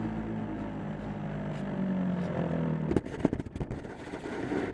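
A model airplane's motor and propeller run steadily, heard from a camera on board. About three seconds in comes a run of sharp knocks and rattles as the plane touches down and bumps across the snow, and the sound stops suddenly near the end.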